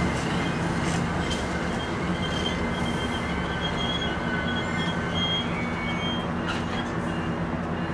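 MARC bilevel commuter coaches rolling past on the rails with a steady rumble of wheels, and faint high wheel squeals coming and going over it.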